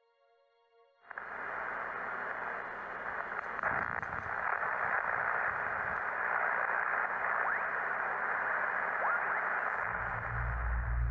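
Radio-style static: a steady band of hiss that starts about a second in, with faint whistling tones that glide upward now and then. A low rumble comes in near the end.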